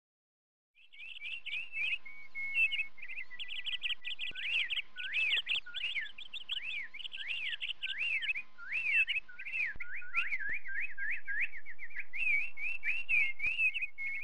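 Songbird birdsong: a quick, continuous run of whistled chirps that swoop up and down, starting about a second in.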